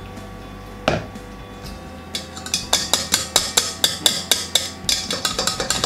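Sieve of flour shaken and tapped on the rim of a stainless steel mixing bowl for sifting, making quick rattling taps about five a second from about two seconds in. A single knock comes about a second in.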